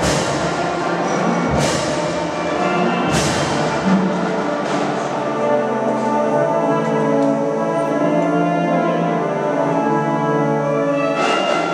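Drum and bugle band playing: three drum-and-cymbal crashes about a second and a half apart, then the bugles hold long brass chords, with another crash near the end.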